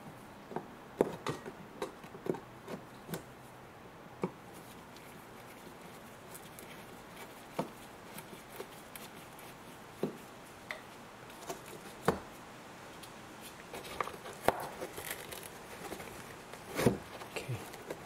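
Irregular light clicks and knocks of gloved hands and a tool working plastic push-pin screws out of a car's plastic wheel-arch liner, busier near the end.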